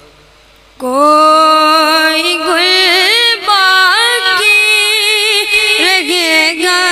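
A boy's high voice singing a naat (Urdu devotional poem) unaccompanied into a microphone. He comes in loudly about a second in and holds long notes that waver and bend in pitch.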